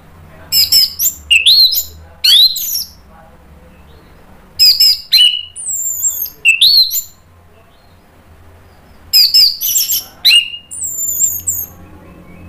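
Orange-headed thrush (anis merah) singing: three loud phrases of varied whistled notes with quick rising and falling glides, a couple of seconds apart.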